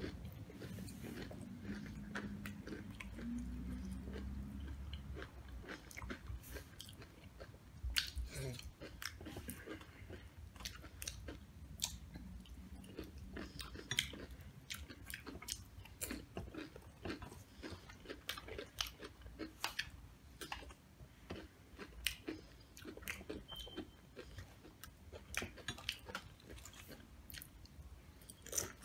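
Close-miked chewing of Doritos nachos: a run of irregular sharp crunches of tortilla chips between the teeth.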